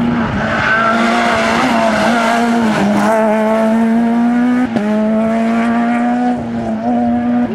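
Peugeot 207 S2000 rally car's naturally aspirated four-cylinder engine running hard at high revs through a corner. The pitch dips briefly about three seconds in and again just before five seconds, then climbs back.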